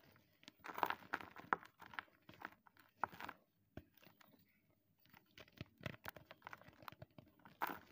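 Blocks of gym chalk being crushed and crumbled by hand over loose chalk powder: irregular dry crunches and crumbling. It is loudest about a second in and again near the end, with a quieter lull in the middle.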